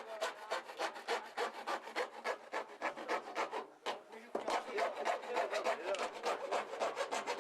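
Rapid sawing strokes through a washing machine's casing, about five a second, with a short pause a little past halfway.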